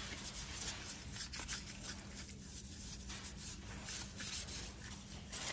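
Newsprint rubbed by hand across an inked copper etching plate, a soft papery rubbing in repeated short strokes. It is the final hand-wipe that takes the last surface ink off the plate before printing.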